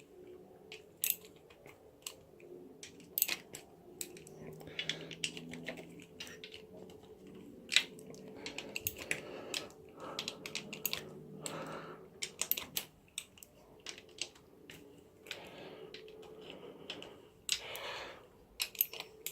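Irregular metallic clicks and clinks from hand tools on the clutch cover bolts of a Triumph Tiger 800 as the bolts are undone.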